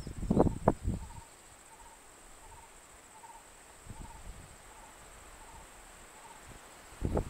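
Insects: a steady high-pitched drone, with a faint short chirp repeating about every three-quarters of a second. Loud low knocks and rustles come in the first second and again near the end.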